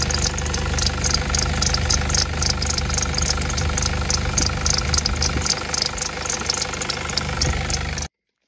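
Nissan Navara's engine idling steadily, heard close up in the engine bay, with a regular light ticking over the running. It cuts off suddenly near the end.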